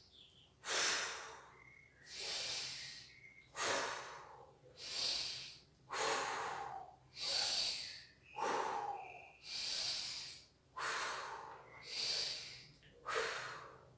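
A man taking deep, audible breaths, in through the nose and out through the mouth, about five full breaths at an even pace of one every two and a half seconds: a diaphragmatic breathing warm-up for singing.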